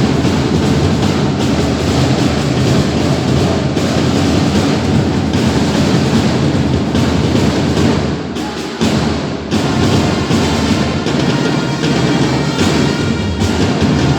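Loud music with heavy drums and percussion, dipping briefly about two-thirds of the way through.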